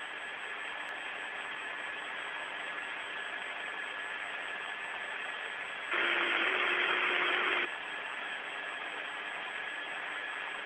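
Steady hiss of an open air-to-ground radio channel with a faint steady whistle running through it. About six seconds in, a louder burst of static with a low hum lasts nearly two seconds, then the plain hiss returns.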